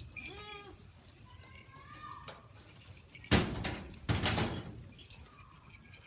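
Goats bleating while feeding: a low, quavering bleat at the start, then a higher, rising bleat about two seconds in, with fainter bleats near the end. Two short, loud bursts of noise come about halfway through.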